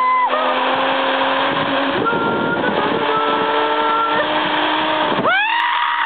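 Zipline trolley running along the steel cable: a steady rushing whir with several held whining tones. About five seconds in, a person lets out a long rising and falling whoop.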